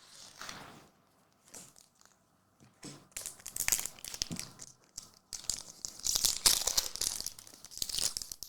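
Trading card pack wrapper being crinkled and torn open: a faint rustle in the first second, then from about three seconds in several seconds of crackling and ripping that come and go.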